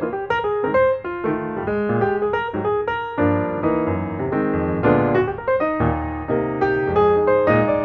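Background piano music: a steady flow of quick struck notes.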